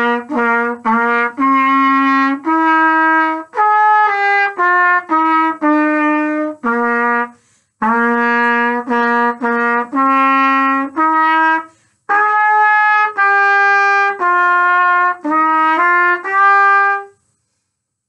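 Solo trumpet playing a simple beginner band melody of short and connected notes, slurred and tongued. It breaks briefly about seven and a half seconds in, plays the same phrase again, then moves on to a higher-lying ending. The playing stops about a second before the end.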